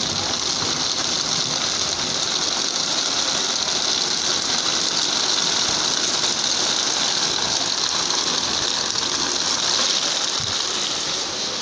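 Heavy rain pouring down, a steady hiss.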